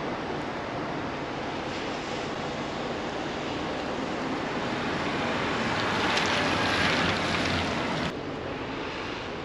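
Steady rushing noise of wind and rain. It swells about six seconds in and drops suddenly a little after eight seconds.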